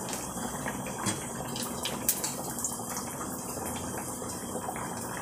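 Pork belly pieces deep-frying in very hot fat for their second, crisping fry: a steady sizzle with a few sharp crackles.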